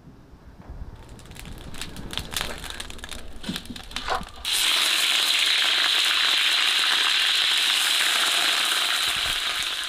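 Scattered crackles and pops from hot oil in an iron wok over a fire. About four and a half seconds in, a sudden loud, steady sizzle sets in as raw chicken pieces go into the hot oil.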